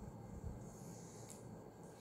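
Faint sounds of children eating and drinking: quiet sipping from a plastic cup and a fork at the mouth, with a soft knock about half a second in.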